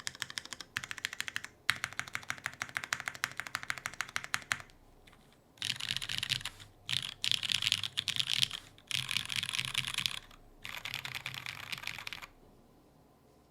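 Typing on an Iron165 R2 mechanical keyboard with lubed Cherry MX Brown Hyperglide tactile switches on a carbon fiber plate, no case dampening, and GMK keycaps: first a fast run of distinct keystrokes, then after a short pause several dense bursts of rapid keystrokes separated by brief gaps.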